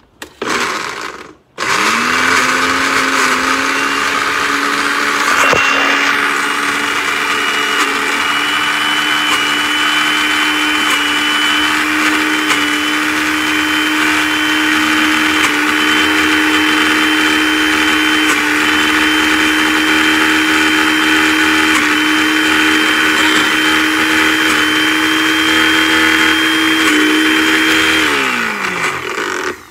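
Countertop blender chopping garlic: a short pulse about a second in, then the motor runs steadily with a whine that creeps slightly up in pitch. It switches off near the end and spins down.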